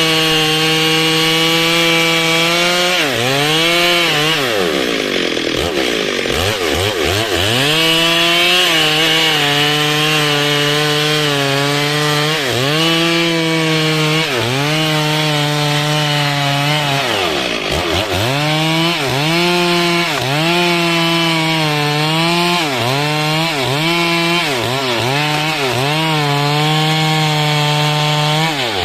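Two-stroke Stihl chainsaw running at high revs, cutting into dry wood. The engine dies down and picks up again a few times, then dips and recovers in quick succession near the end as the throttle is eased and reapplied.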